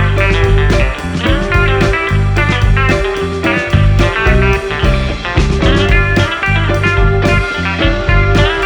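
Background music: guitar-led blues-rock with a steady beat.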